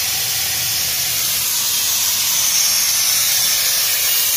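Air-driven suction tool of an engine carbon-cleaning kit hissing steadily as it draws dirty cleaning fluid out of a cylinder through a clear tube in the spark plug hole.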